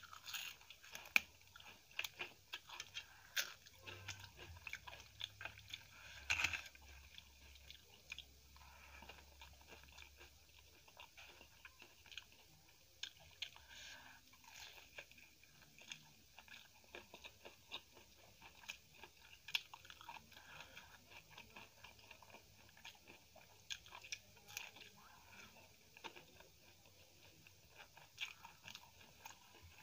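Close-miked chewing with crisp crunches of papad, densest in the first several seconds and sparser after.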